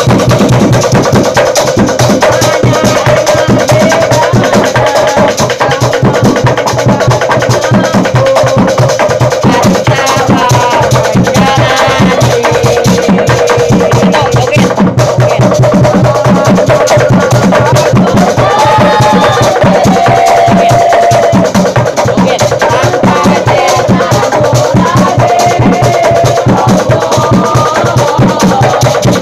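A group chanting and shouting in football-supporter style over a loud, steady beat of hand-struck drums and wooden knockers: an obrog sahur percussion troupe playing to wake people for the pre-dawn meal.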